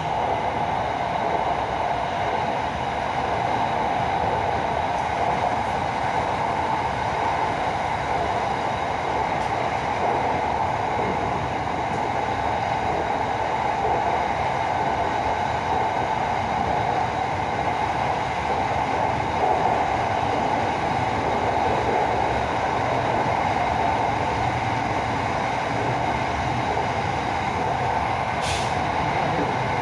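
SRT Red Line electric commuter train running at speed, heard from inside the carriage as a steady noise of wheels on rail and passing air, with a brief click near the end.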